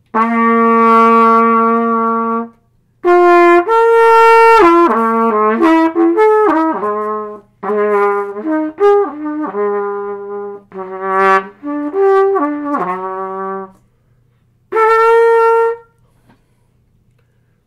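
Trumpet played solo: one long held note, then three runs of quickly changing notes with short breaks between them, ending on another held note.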